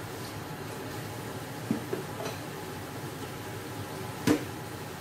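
Chicken feet simmering in sauce in an open pot on a gas burner: a steady hiss with a few soft pops near the middle and one sharper pop or knock about four seconds in.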